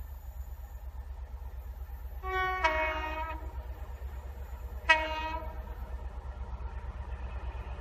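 Approaching train's two-tone horn: a longer blast that steps from the higher note down to the lower, then about two seconds later a short blast on the lower note, over a steady low rumble.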